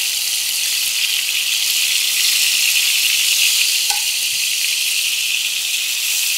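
Shrimp-stuffed calamari tubes sizzling steadily in hot oil in a frying pan as they are quickly seared, with a faint click about four seconds in.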